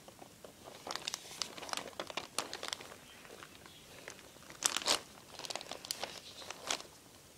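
Clear plastic bag and newspaper wrapping crinkling and rustling as hands handle a wet bundle of plants, in irregular crackles with two louder ones about five seconds in.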